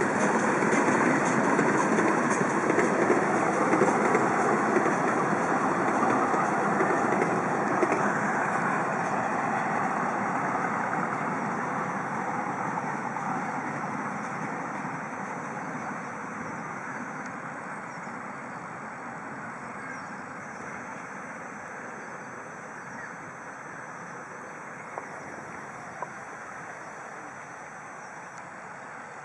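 Miniature steam locomotive pulling its train of open passenger cars past and away along the track; its running sound fades steadily into the distance. Two short clicks come near the end.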